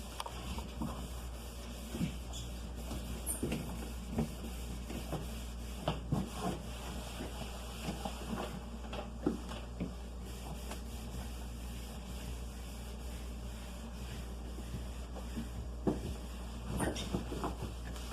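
Scattered light knocks and rubbing from cleaning a refrigerator: things being handled and set down and surfaces wiped, over a steady low hum.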